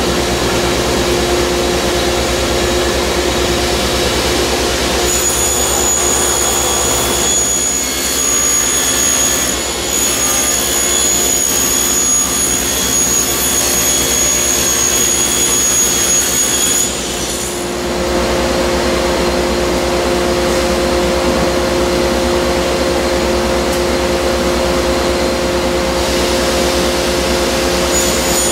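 Table saw running with its dust collection drawing air, a steady loud machine noise, while 3/4-inch maple veneer plywood panels are ripped to size. A high whine joins in from about five seconds to about seventeen seconds and again near the end.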